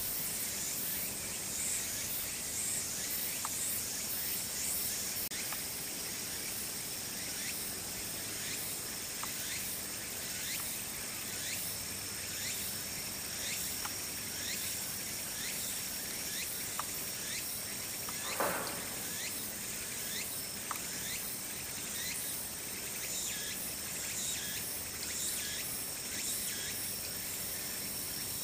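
Evening insect chorus, crickets trilling steadily at a high pitch, with light repeated chirps about once a second. One brief louder noise stands out about two-thirds of the way through.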